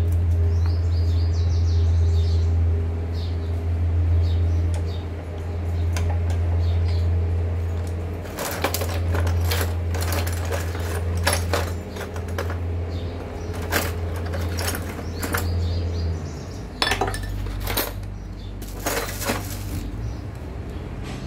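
Metal hand tools, sockets and bolts clinking and clattering as they are rummaged through in a plastic toolbox, starting about eight seconds in, over a steady low hum.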